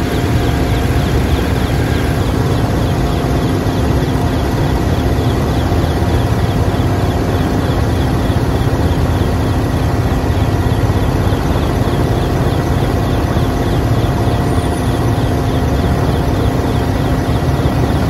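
Steady engine drone heard from inside a moving vehicle: a constant low rumble with a few fixed hum tones over it, unchanging throughout.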